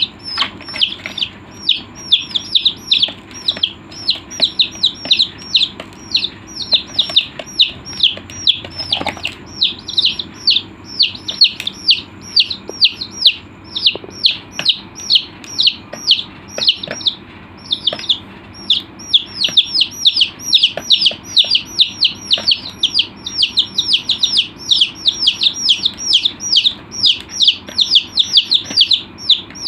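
Dyed chicks peeping: a steady stream of short, high calls, each falling in pitch, several a second, with a short pause about two-thirds of the way through.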